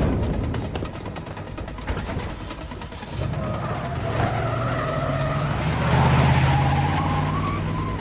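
Chevrolet van engines revving hard as the vans pull away at speed, with tyres squealing. The engine sound comes in about three seconds in and builds to its loudest near six seconds.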